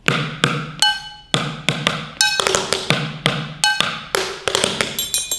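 Drumsticks playing a groove on upturned kitchen items: a plastic mixing bowl, a plastic container and a pot. Some strokes ring with a clear tone. About two to three strokes a second, crowding into a quick run near the end.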